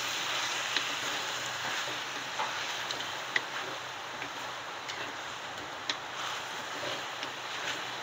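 Chicken pieces frying in a pan with sauces just stirred in: a steady sizzling hiss with scattered sharp ticks and pops.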